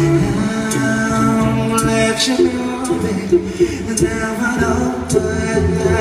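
A cappella vocal group singing live through handheld microphones: layered sustained harmonies over a low bass voice, with sharp beatboxed clicks as percussion.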